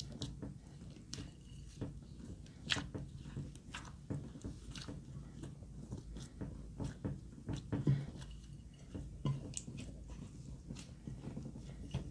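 Slime being kneaded by hand through crumbled pressed eyeshadow in a glass bowl: irregular sticky squelches and small crackling clicks, with a couple of louder pops.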